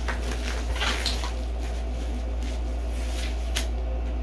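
Bubble wrap rustling and crinkling as it is pulled off a packed item, then cardboard being handled, with one sharp click about three and a half seconds in, over a steady low hum.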